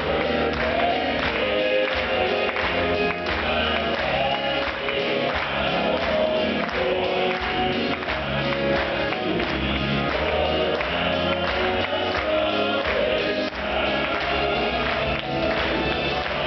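Southern gospel male quartet singing in close harmony over instrumental accompaniment, recorded live.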